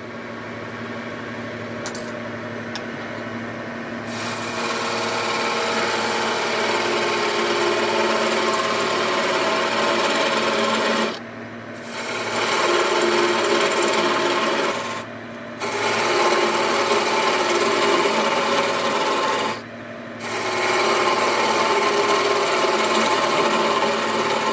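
Wood lathe running with a turning tool cutting into a spinning fir blank: a steady motor hum, then from about four seconds in a loud, even shaving sound as the tenon at the end is turned down to about 2 cm to take a metal ferrule. The cutting stops briefly three times while the lathe keeps running.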